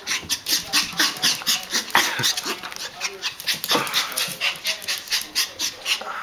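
Yorkshire terrier barking rapidly in a steady run of sharp yaps, about four a second, agitated by a toy dog it takes as a threat.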